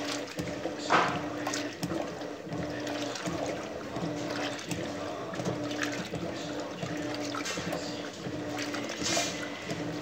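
Electrolux Turbo LT12F 12 kg top-load washing machine agitating a load of clothes in water: water sloshing and churning over a motor hum that cuts in and out in short, regular pulses. A louder splash about a second in.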